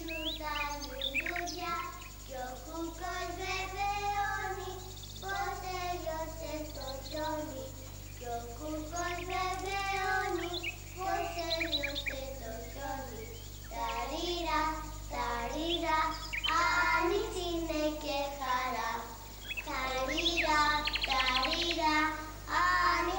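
A child's voice singing a melody, phrase after phrase, with no instruments heard.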